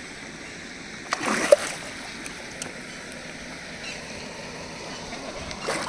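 A snakehead fish splashing at the pond surface, one sharp splash about a second in and a smaller one near the end, over a steady outdoor hiss.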